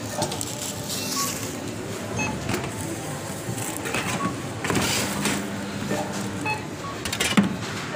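Supermarket checkout conveyor belt motor whirring as it carries groceries forward, with short barcode-scanner beeps and the rustle and knock of items being handled. A sharp knock comes near the end.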